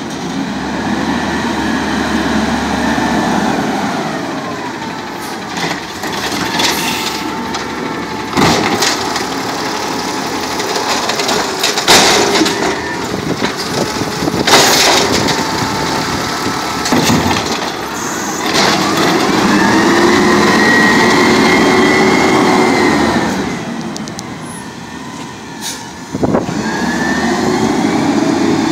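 Natural-gas automated side-loader garbage truck working: the engine revs with a rising and falling hydraulic whine as the arm lifts and dumps recycling carts, and several sharp bangs come from the carts knocking as they are emptied. Near the end the truck pulls away.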